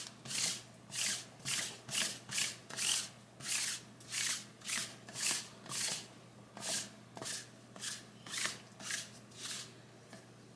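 Sticky lint roller rolled back and forth over a fleece hoodie sleeve in quick strokes, about two a second, to clear lint before heat pressing. The strokes stop near the end.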